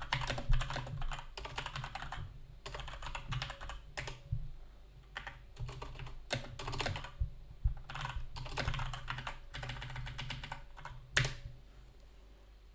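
Typing on a computer keyboard: irregular runs of key clicks that stop about eleven seconds in, over a faint low hum.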